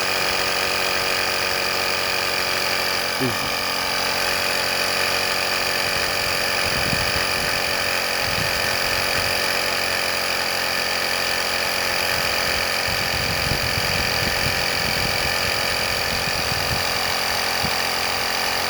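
Small air compressor built into an EverStart portable jump starter running steadily while it pumps up a tyre: a constant mechanical hum with steady high whining tones.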